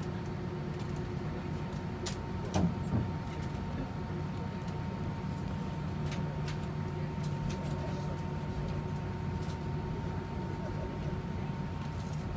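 Steady hum inside a jet airliner's cabin as it taxis, with a faint steady whine over it. Two short knocks about two and a half seconds in.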